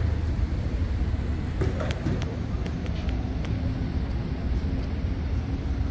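Steady low rumble of city road traffic, with a few faint clicks about two seconds in.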